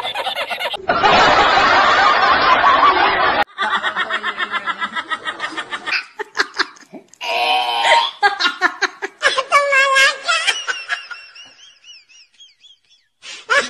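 Edited-together laughter clips, one after another with abrupt cuts between them: first a noisy laugh, then a run of quick rhythmic ha-ha pulses, then higher giggles that fade away. After a brief pause, another laugh starts near the end.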